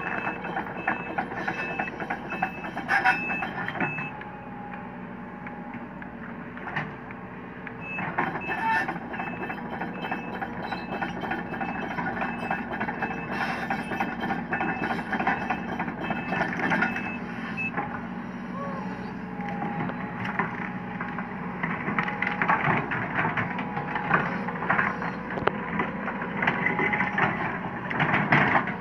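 Sumitomo SH130 crawler excavator's diesel engine running as it moves, its travel alarm beeping at an even pace for the first few seconds and again from about eight to seventeen seconds in. Later the engine works harder under scattered cracks and snaps as the bucket pushes into brush.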